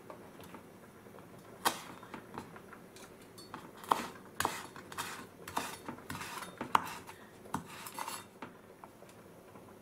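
Kitchen knife chopping small green herbs on a wooden cutting board: irregular sharp knocks of the blade on the board, starting about a second and a half in and stopping near the end.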